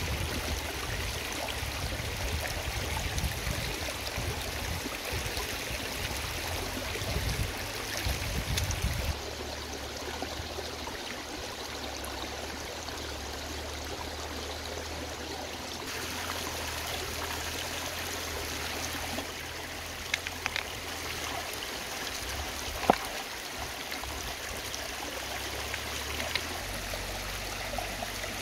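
A shallow rocky stream running steadily over stones, with one sharp click about two-thirds of the way through.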